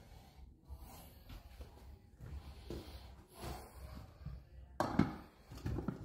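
A man breathing heavily and snorting through the nose close to a handheld phone's microphone, over a low handling rumble. A sharper, louder rustle comes about five seconds in.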